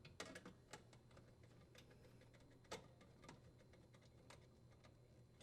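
Faint, scattered clicks and taps of a screwdriver driving the grounding-wire screw and handling the small metal parts, about half a dozen in all, the sharpest near the start and about two and three-quarter seconds in.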